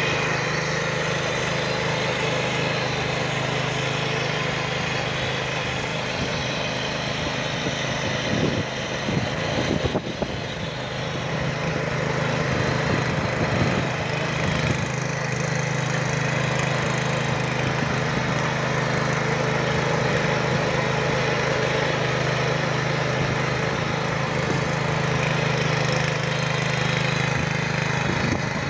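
Engine of a BG1000B-2 walk-behind rotary tiller running steadily under load as its tines churn through soil, with a short unsteady patch around ten seconds in.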